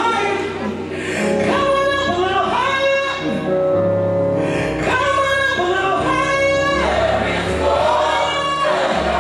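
Gospel music: voices singing long held phrases in choir style over a bass line that steps from note to note.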